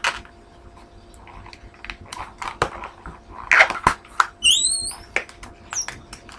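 Latex modelling balloon being handled and twisted: scattered rubbery rustles and clicks, with a short high rising squeak about four and a half seconds in.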